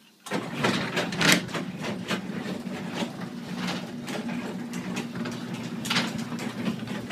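Garage door opener starting up about a third of a second in and running with a steady hum, the sectional door's rollers clicking and rattling along the track as the door travels down from fully open.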